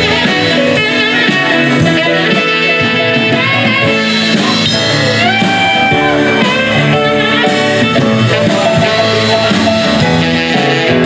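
Live blues band playing an instrumental passage without vocals: acoustic guitar, electric bass, drum kit and saxophone, with a few held, bending lead notes a little past the middle.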